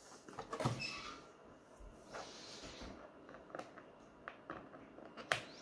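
Faint handling noises of a plastic RC car body being pressed down and fitted onto its chassis: scattered light clicks and rustles of plastic, several separate taps over a few seconds.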